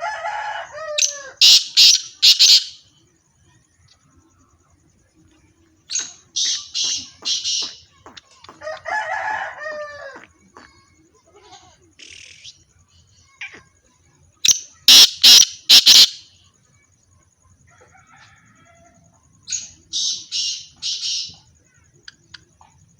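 Black francolin (black teetar) calling: a loud, harsh phrase of several quick notes, repeated four times at intervals of about five seconds. Twice, a lower, drawn-out call from another bird comes in between.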